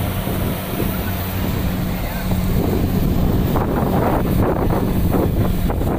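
Rice combine harvester engine running with a steady low hum, mixed with wind noise on the microphone.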